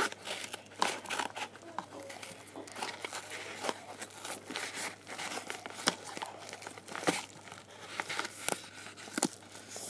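Padded postal mailer being handled and opened at the top, crinkling and tearing with many irregular sharp crackles.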